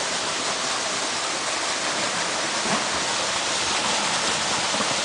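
Narrow waterfall pouring down a rock face into a pool: a steady rush of falling water.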